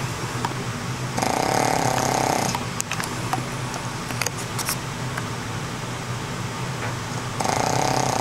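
Boston terrier snoring in its sleep: two long snores, one about a second in and one near the end, each lasting a little over a second, over a steady low hum.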